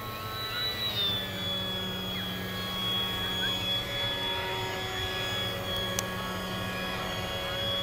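Electric motor and propeller of a scratch-built RC park jet whining steadily in flight, the pitch dropping slightly about a second in and then holding.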